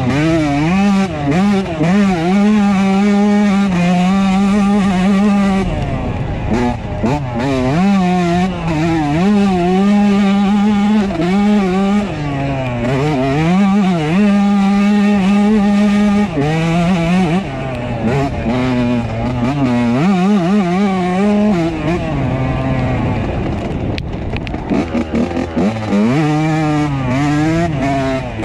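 2003 Yamaha YZ125's single-cylinder two-stroke engine under way, its pitch climbing and dropping over and over with throttle and gear changes, held steady for a few seconds at a stretch.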